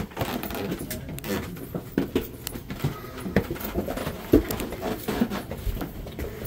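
Footsteps climbing steep wooden stairs: irregular knocks and thumps of shoes on the wooden treads, in a small enclosed stairwell.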